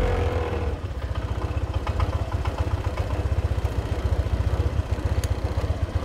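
Honda PCX 125's single-cylinder four-stroke engine dropping back from a rev and then idling with a steady, rapid beat.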